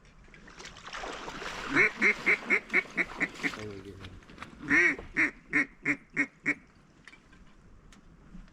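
Two quick runs of loud, evenly spaced duck quacks: about eight in the first run, then a short pause, then about seven more.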